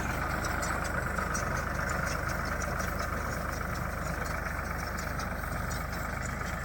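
A tractor running steadily while driving a baler in the field, with a constant engine drone and a steady whine on top.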